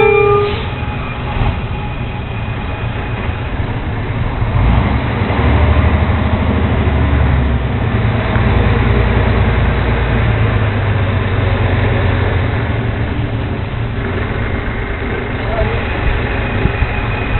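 Diesel engine of a Leach rear-loader garbage truck running as the truck moves slowly, a steady low rumble that swells from about five to eight seconds in. A brief tone sounds right at the start.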